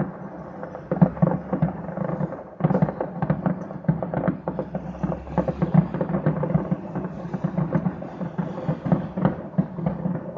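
A dense, uninterrupted barrage of fireworks bangs, mostly deep booms with crackle between them. It is the stock of a burning fireworks warehouse going off uncontrolled, batch after batch.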